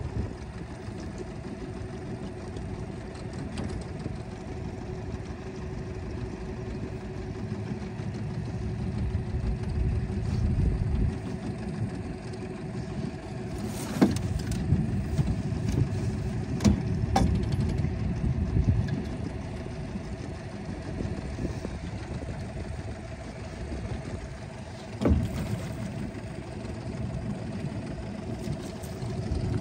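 Small boat outboard motor running steadily at low speed with a low rumble, and a few sharp knocks partway through.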